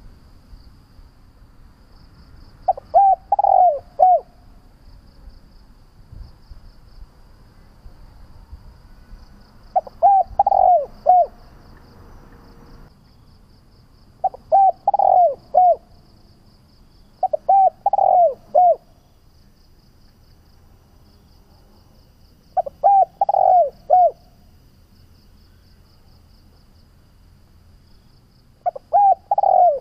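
Spotted dove (Streptopelia chinensis) cooing: six phrases of three or four short arched coos each, a few seconds apart. A faint, rapid high pulsing runs steadily beneath.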